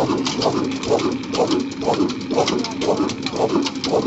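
Old black horizontal diesel engine running at a slow, steady speed, beating about three times a second.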